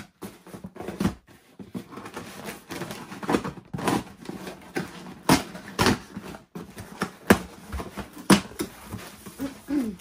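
A cardboard box and its packaging being opened and rummaged through by hand: irregular knocks, scrapes and rustles of cardboard and wrapping.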